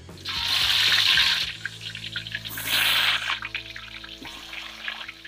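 Brine-dipped tofu pieces going into hot oil in a steel wok: two loud sizzling hisses as the wet pieces hit the oil, then a steady crackle of frying.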